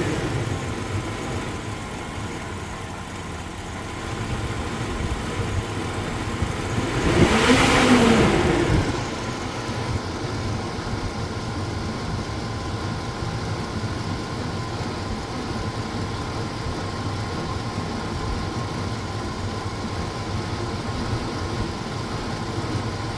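1999 GMC Sierra V8 engine idling, revved once about seven seconds in and falling back to a steady idle. It is running with intermittent misfires on cylinders 4 and 8, put down to a leaking intake manifold.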